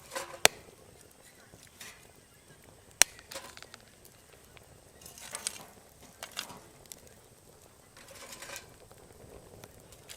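Firewood being split at camp: two sharp knocks, about two and a half seconds apart, then several softer crunching, rustling sounds as the split wood is handled.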